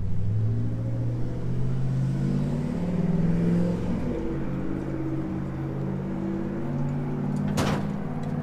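A motor vehicle engine running, its pitch drifting slowly up and down, with a short knock near the end.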